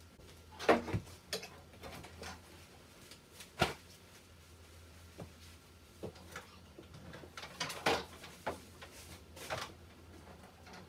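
Irregular knocks, clatters and rustles of household tidying: clothing shaken out, then things moved about in a low cabinet or drawer. The sharpest knocks come just under a second in and again about three and a half seconds in.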